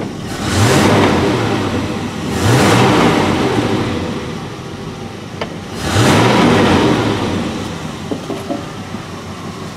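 Dodge pickup's 318 V8 with a one-barrel carburetor, warmed up with the choke open, revved by the throttle three times. It rises and drops back toward idle each time, about half a second in, at about two and a half seconds and at about six seconds, then settles to idle. It is running with only a slight occasional hesitation or miss.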